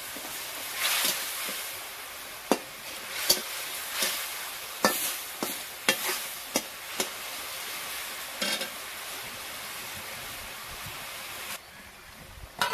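Masala frying in hot oil in an iron kadhai, sizzling steadily while a metal spatula stirs it and knocks and scrapes against the pan several times. Near the end the sizzling drops away suddenly as liquid goes into the pan.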